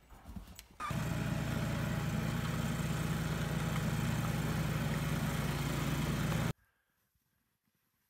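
Gas snowblower engine running steadily at a constant speed. It starts abruptly about a second in and cuts off suddenly after about six and a half seconds.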